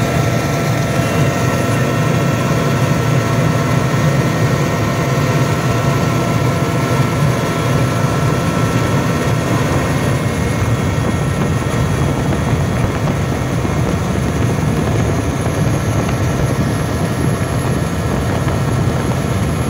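Steady, even drone of an aircraft in flight, heard from inside its cabin, with a few faint steady tones above the low rumble.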